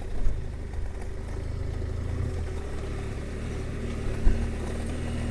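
Adventure motorcycle's engine running at low speed with a steady low rumble, and a short thump about four seconds in.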